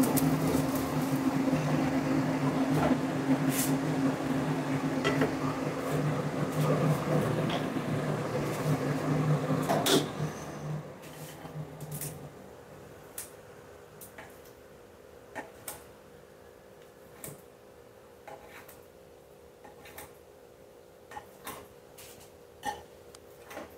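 A kitchen range hood fan runs with a steady hum and cuts off about ten seconds in. Then kitchen scissors snip a rolled crepe into pieces on a plate, a run of short, sharp clicks.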